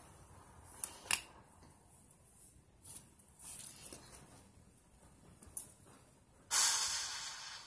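A dog sniffing and snorting in short hissy puffs, the longest and loudest about six and a half seconds in.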